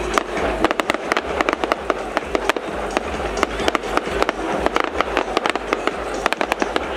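Aerial fireworks bursting overhead: dense crackling of many sharp pops a second from crackling star shells, over a continuous low rumble.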